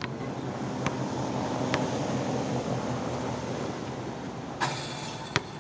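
A basketball knocking a few times on an outdoor asphalt court, the last knock near the end the loudest, over a steady rumble that swells and then fades.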